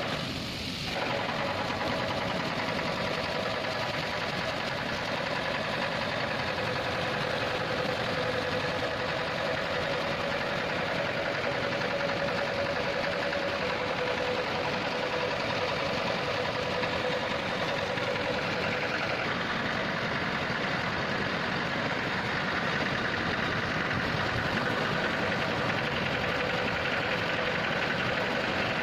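Water spraying and dripping from a steel spillway flap gate onto the concrete floor, over a steady machine hum whose pitch shifts slightly partway through.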